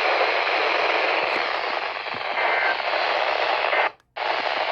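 Weather radio receiver hissing with static from a weak or missing station signal, with a brief cut to silence about four seconds in.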